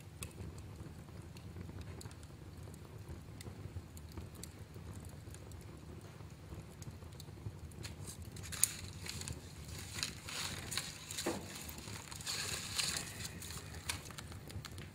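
Fire burning in a fireplace: a low steady rumble with scattered crackles, which thicken into a busy run of pops and crackles from about eight seconds in, with one sharp pop among them.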